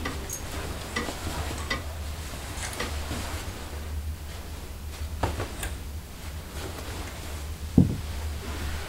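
Clothes on hangers being handled: scattered light clicks and knocks of hangers with garment rustling, over a low steady hum, and one louder thump near the end.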